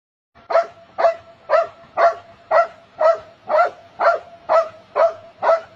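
A dog barking steadily in an even rhythm, about two barks a second, each bark alike in pitch and loudness.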